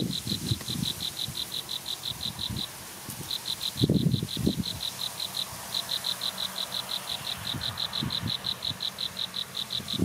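Rhythmic high-pitched chirping from an insect, about seven or eight even pulses a second, in runs of two to three seconds broken by short pauses. Irregular low rumbling sits underneath, heaviest about four seconds in.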